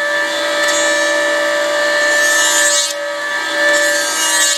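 Electric power tool running steadily against a wooden strip, a constant motor whine over a rasping hiss with brief dips as it loads, cutting off suddenly at the very end.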